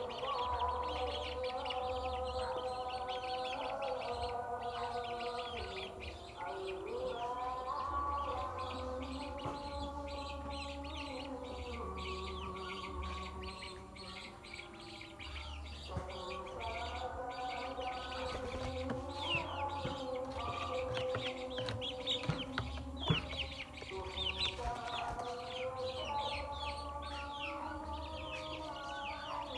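Chicks peeping continuously in many quick, high, falling chirps, over background music with long held notes.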